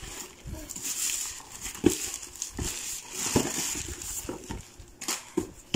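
A black plastic shipping bag crinkling and rustling as it is handled, with a few short knocks along the way.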